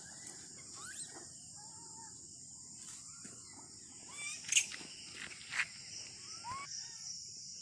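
Outdoor ambience: insects droning steadily at a high pitch, with short bird chirps throughout. A few sharp clicks or knocks come near the middle, the loudest about four and a half seconds in.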